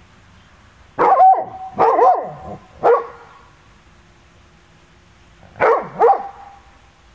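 A dog barking: three barks about a second apart, then two more in quick succession a few seconds later.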